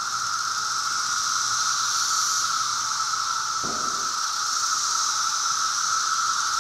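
Field recording of a periodical cicada chorus: a dense, steady buzzing drone without pulses.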